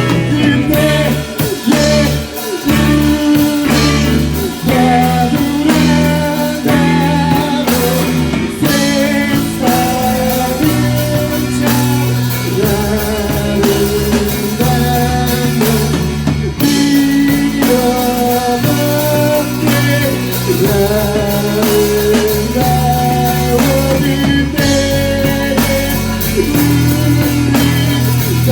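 Rock band playing a passage of the song: electric guitar lines over bass guitar and a steady drum kit beat.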